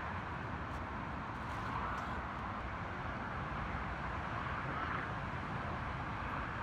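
Steady hum of distant road traffic, an even wash of noise with no distinct events.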